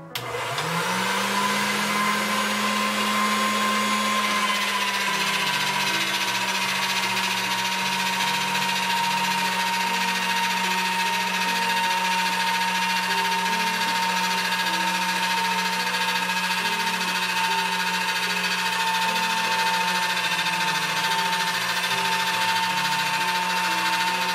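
Electric motor driving a Marcato Atlas pasta roller, starting up and running steadily with a hum and a whine while a sheet of noodle dough is rolled through. The whine's pitch sags a little about five seconds in, then holds.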